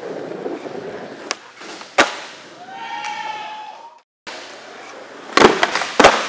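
Skateboard wheels rolling on a smooth floor, then the sharp crack of the board landing about two seconds in. After a short break, the board knocks onto a ledge and slaps back down in a quick cluster of loud impacts near the end.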